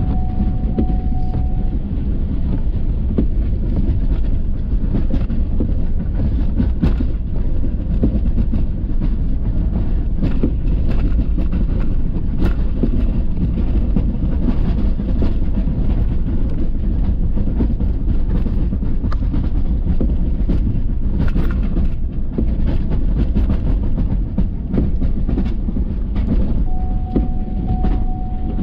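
Ford F-350 pickup with a Boss snowplow driving, a steady low rumble with scattered knocks and rattles.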